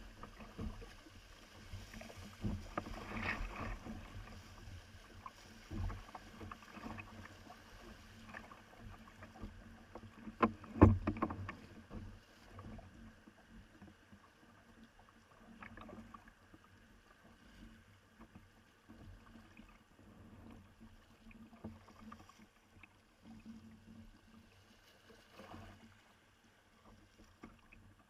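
Kayak on the water: paddle splashes and water sloshing with scattered knocks against the hull, one loud thump about eleven seconds in, quieter and sparser toward the end.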